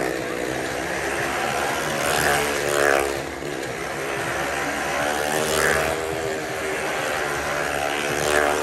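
Two motorcycles circling the wooden wall of a well-of-death, their engines running hard in a continuous drone that swells several times as a bike sweeps past close by, with the pitch sliding up and down.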